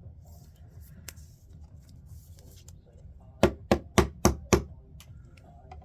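Five quick, sharp knocks on a hard surface, about four a second, with faint handling clicks and rustles before them.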